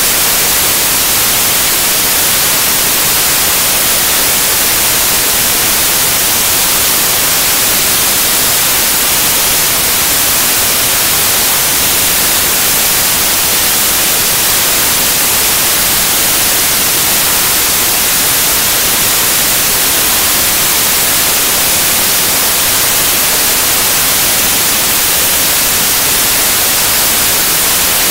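Loud, steady static hiss that fills the sound track and is strongest in the treble, with no speech coming through: a recording fault drowning out the talk.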